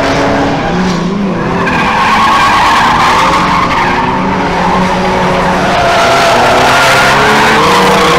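Drift car engine held at high revs while the tyres squeal and skid through a sustained drift, the engine pitch wavering up and down.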